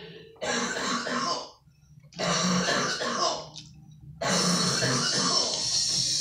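A person clearing their throat and coughing, in separate bursts about a second long with short pauses between them.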